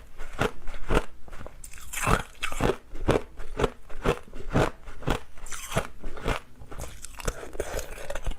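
Hard clear ice being bitten and chewed close to the microphone: a steady run of sharp crunches, about two to three a second.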